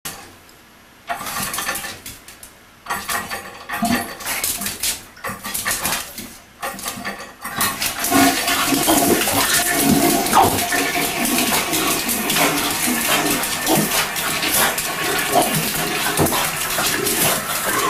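Short, irregular noises with quiet gaps, then a toilet flushing: a steady rush of water from about eight seconds in.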